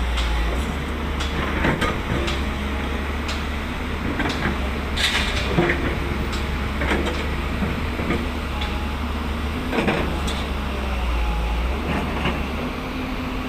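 Steady low engine noise with scattered knocks and clatters.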